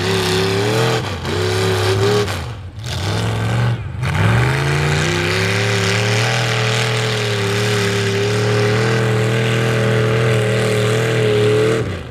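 Chevy mud truck's engine running through open upright headers, revved hard while the truck churns through a mud pit. The revs drop and climb back a few times over the first four seconds, then are held high and fairly steady for the rest.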